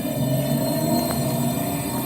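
Traction motors of a Renfe Series 446 electric multiple unit heard from inside the car: a steady electric hum of several held tones whose upper note rises slightly as the train gathers speed.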